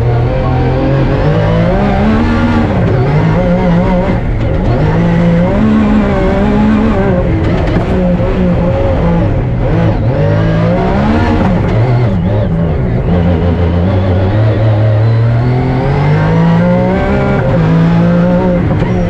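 Rally car engine at racing speed, its pitch climbing and dropping again and again as it revs up through the gears and comes off the throttle.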